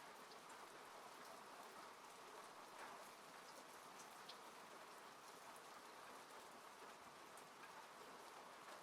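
Faint, steady rain on a car heard from inside the cabin: an even hiss with scattered drops tapping.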